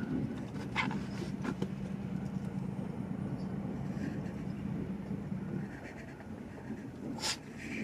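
Diesel locomotive engine running steadily as a low drone, its hum easing off about two thirds of the way through, with a few sharp clicks over it.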